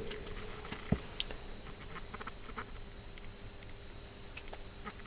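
Faint handling noise from a metal folding multitool turned over in the hands: a sharper click about a second in, then a few light ticks and scratches.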